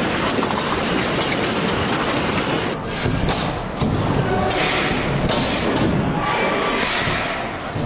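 Ground and structures shaking in a strong earthquake: a loud, dense rumbling and clattering, with several heavy thuds around the middle.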